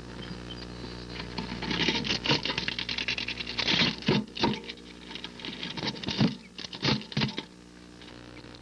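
Wood duck hen shifting and scratching in the nest-box bedding among the hatched eggs, a run of rustles and clicks from about two seconds in until near the end. A steady low hum runs underneath.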